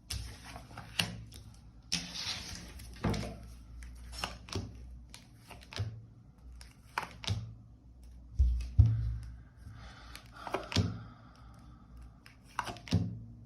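Tarot cards being handled and laid on a table: scattered clicks and taps with brief rustles, and a couple of dull thumps about eight and a half seconds in.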